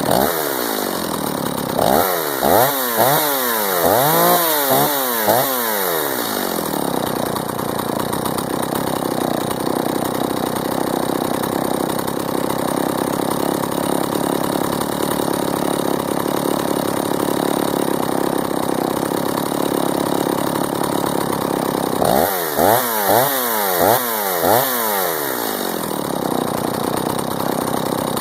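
Stihl 024 AV two-stroke chainsaw, freshly warm-started, running. It drops to idle, is revved up and down about five times in quick succession a couple of seconds in, and idles steadily. Near the end it gets another quick run of about five revs, then settles back to idle.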